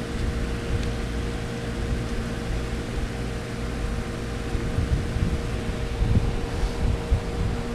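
Steady low rumble and hum, like a fan or motor running, with a few dull thumps in the second half.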